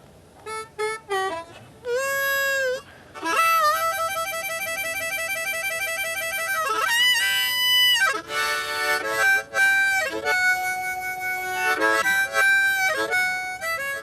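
Blues harmonica playing: a few short notes, a bent note about two seconds in, then a long, rapid trill for several seconds, followed by held and repeated notes.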